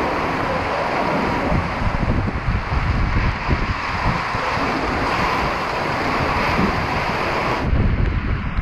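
Squall wind of over 60 knots buffeting the microphone in heavy gusts, with driving rain hissing on the water and deck. About a second before the end the high hiss cuts off, leaving a heavier low wind rumble.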